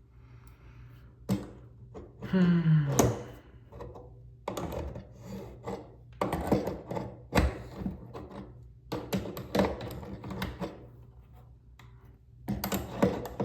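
A wrench working a stubborn faucet nut loose, making irregular metal clicks, knocks and scraping as the tool is set on the nut and turned. The nut has broken free but still turns stiffly.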